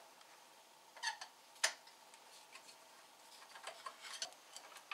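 Small metallic clicks and ticks of a screwdriver working the little screws of a milling machine's top cover: a couple of sharp clicks about a second in, then a run of lighter ticks near the end.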